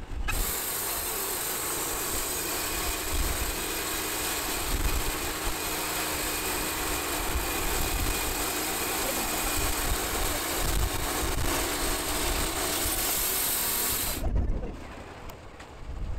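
Wood-Mizer LT-series portable band sawmill sawing through an oak log: its engine running under load with a steady loud hiss of the blade cutting the wood. The sawing sound cuts off abruptly about 14 seconds in, leaving a quieter low rumble of wind on the microphone.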